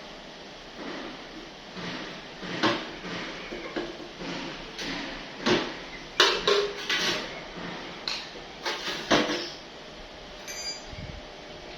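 A run of irregular knocks and clatters, a dozen or so, from hard objects being handled and set down, loudest around the middle; it dies down about ten seconds in.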